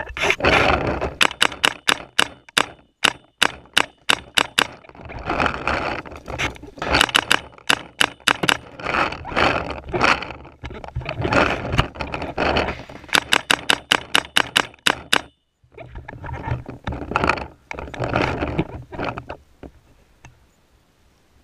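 Paintball marker firing in rapid strings of sharp pops, several a second, with bursts of rushing noise between the strings. The shooting stops about fifteen seconds in.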